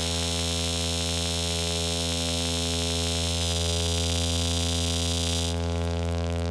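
Analog synthesizer drone: a buzzy oscillator held on one low note through the Behringer 121 dual VCF, its resonant filter set bright. About five and a half seconds in the cutoff is pulled down and the high end drops away, leaving a duller tone.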